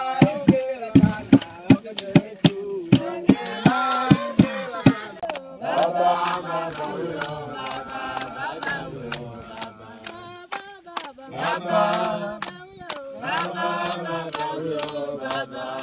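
A crowd of men, women and children singing together to steady rhythmic hand clapping. The clapping is strongest early on, and the massed voices swell about five seconds in.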